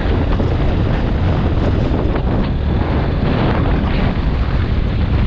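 Wind rushing over the microphone of a camera on a moving motorcycle, a loud steady buffeting, with the motorcycle's engine running underneath.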